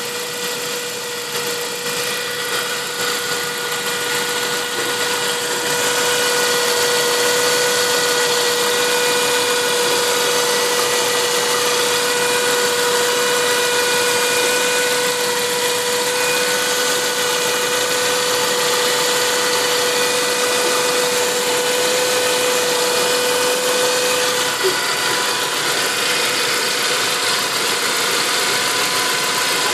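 Turbocharged Saab 9-5 engine running on E85, not fully warmed up, with a steady high whine over the engine noise. The whine is a strange sound whose source the owner cannot place. It drops out about five seconds before the end.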